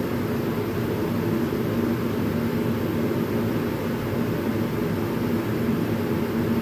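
Chevrolet tuned-port-injection V8 in a Jeep YJ idling steadily, with no revving.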